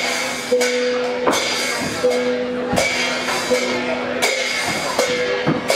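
Northern Thai percussion playing a slow, steady beat: hand cymbals and a gong struck together about every three-quarters of a second, about eight strokes in all. The gong's tone rings on between strokes.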